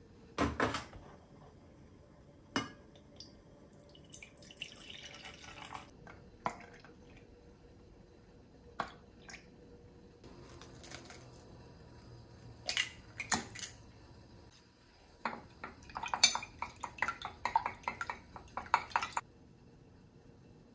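Kitchen work with dishes and utensils: scattered knocks and clinks, then a quick run of taps and clatter near the end.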